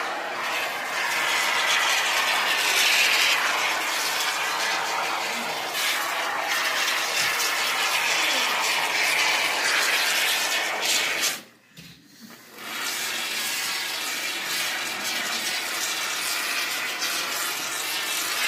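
Can of Great Stuff expanding spray foam hissing steadily as foam is dispensed through its straw nozzle, stopping for about a second a little past the middle, then resuming.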